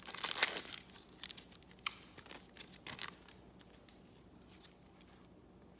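A trading card pack's wrapper being torn open with crackly rustling, then scattered rustles and clicks of the wrapper and cards being handled, fading out in the last couple of seconds.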